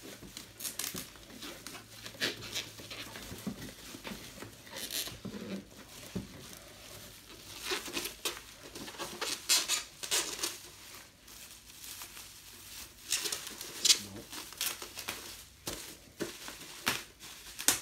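Bubble wrap crinkling and rustling in irregular bursts as it is pulled by hand off a boxed vinyl figure.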